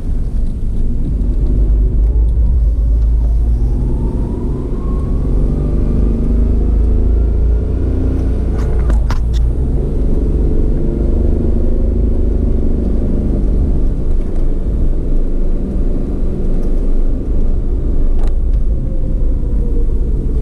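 Motorcycle engine running as the bike rides along, its pitch rising as it speeds up for several seconds, under heavy wind rumble on the microphone. Short knocks come about nine seconds in and again near the end.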